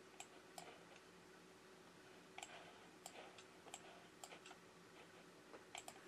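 Faint computer mouse clicks, about ten sharp clicks at uneven intervals over near silence.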